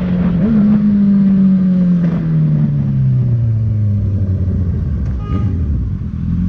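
Honda CB650F inline-four running through a Jeskap full sports exhaust, its revs falling steadily as the motorcycle slows.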